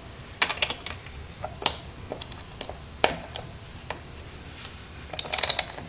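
Sharp metallic clicks and taps of a 12 mm wrench working the rear sprocket bolts of a 2002 Yamaha YZ125 as they are tightened down. There are a few scattered clicks, then a quick run of clicks near the end.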